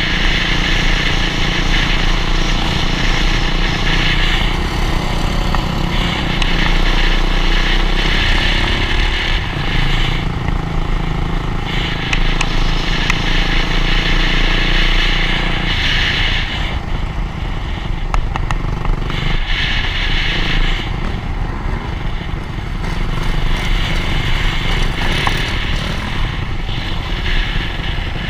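Dirt bike engine running at road speed, surging and easing off in stretches of a few seconds, with wind rushing over the camera microphone.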